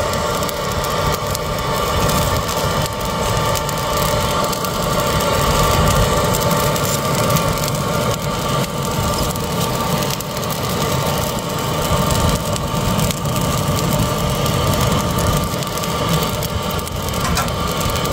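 A steady mechanical hum with a held whine, over a fluctuating low rumble of wind on the microphone.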